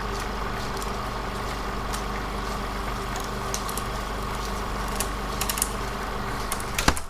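A machine running with a steady low hum and scattered light clicks, and a sharper click near the end as it stops.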